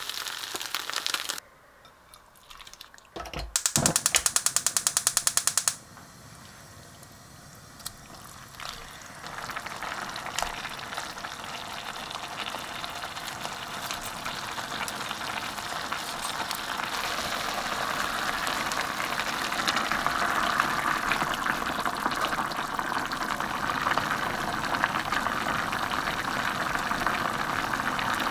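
Egg roll sizzling in a frying pan for the first second or so, then a burst of rapid clicking for about two seconds. From about nine seconds in, a pot of kimchi stew simmering and bubbling on the hob, slowly growing louder.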